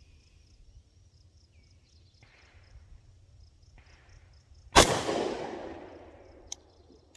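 A single shot from a prototype pistol about two-thirds of the way in, with a long echo trailing away over about two seconds and a small click after it. The spent case fails to eject from this shot.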